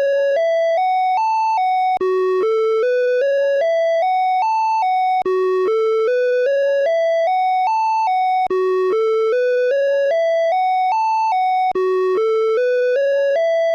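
Åland Islands EAS emergency alert alarm tone, looping. Each cycle is a climbing run of about ten short electronic beeps, each a step higher, ending one step down. After a brief dropout it starts over, about every three and a quarter seconds, four times.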